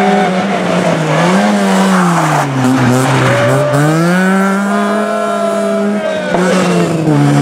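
Opel Kadett rally car's four-cylinder engine, loud and close. The revs drop as it slows for a tight corner a couple of seconds in, then climb again as it accelerates out, with a short break near the end for a gear change.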